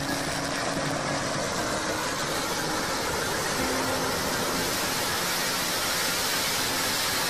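A huge carpet of red firecracker strings going off on the road at once: a dense, continuous crackling rattle of countless small bangs merging into one steady roar of noise, growing slightly louder as the burning spreads.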